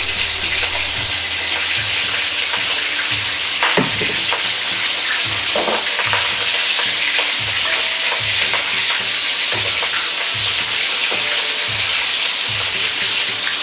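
Shrimp frying in oil at about 120 °C in a Chinese wok, a steady dense sizzle as they are oil-blanched and stirred with chopsticks. A few light utensil knocks sound over it, the clearest about four seconds in.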